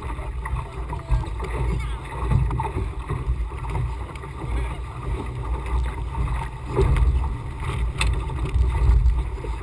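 Wind buffeting the microphone of an action camera on a Laser 2000 sailing dinghy under way in a fresh breeze, a gusting low rumble, with water splashing along the hull and a few small knocks.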